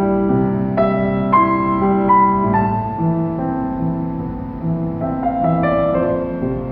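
Grand piano played solo: a melody of single ringing notes over a bass line that moves about every half second.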